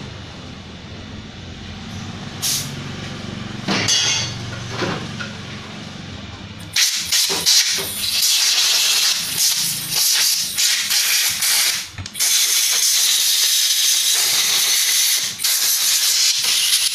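Compressed-air blow gun hissing as it blows dust out of a cordless drill's small brushed DC motor, which the owner takes to be dirty. The hiss starts about seven seconds in and breaks off briefly near twelve seconds; before it there is a low steady hum and a few clicks.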